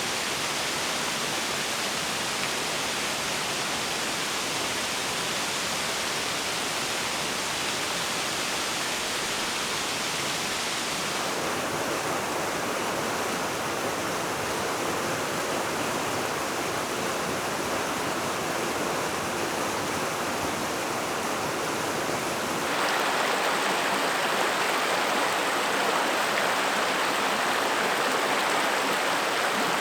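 Rushing water of a canyon stream, a steady hiss of moving water. Its sound changes abruptly about 11 seconds in and again about 23 seconds in, where it gets louder.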